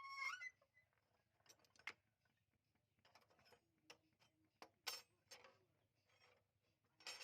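Near silence broken by faint, scattered clicks and light taps, with a brief high squeak rising in pitch at the start.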